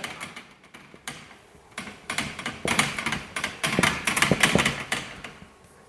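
Marker pen writing on a whiteboard: a quick run of short scratchy strokes and taps, mostly from about two seconds in, trailing off near the end.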